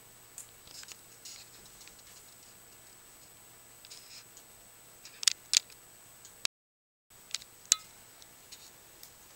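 A handful of sharp clicks and light rustles in a quiet room. The loudest are a close pair about halfway through and a single click about two seconds later. The sound cuts out completely for about half a second between them.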